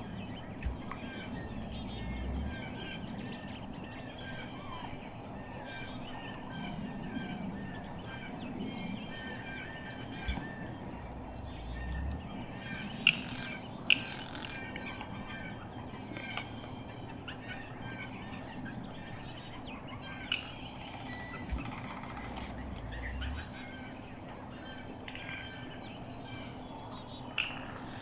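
Birds chirping and calling continuously in short repeated notes, with two sharp clicks close together about halfway through.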